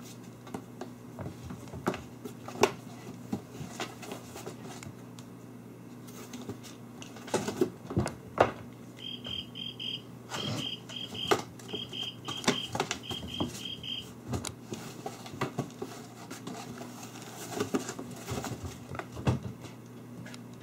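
Kittens scuffling and pouncing on a wooden floor, with irregular light taps and knocks as they bump the cardboard box and cat scratcher, the loudest about eight seconds in, over a steady low hum. For about five seconds in the middle, a run of short high chirps comes in quick groups of three.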